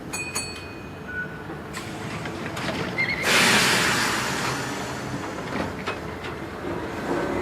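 Train sound effect: a steady rumble with a few clicks and short high squeals near the start, then a loud rush of noise about three seconds in that slowly dies away.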